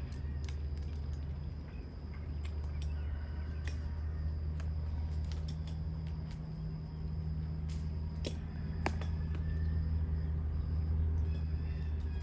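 A steady low rumble that starts and stops abruptly, with birds chirping and a few clicks over it.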